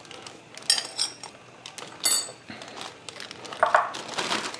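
A spatula scraping and knocking against a glazed ceramic bowl while emptying marinade into a plastic bag, with two sharp ringing clinks about a second and two seconds in. The plastic zip-top bag rustles near the end.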